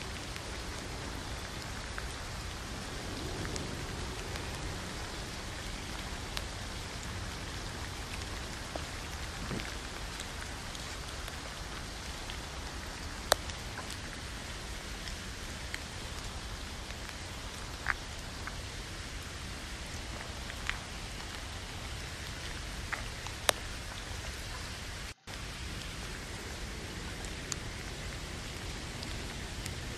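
Steady hiss of rain on the tent mixed with meat frying in a steel pan on a gas cartridge stove, broken by several sharp clicks of a metal fork against the pan.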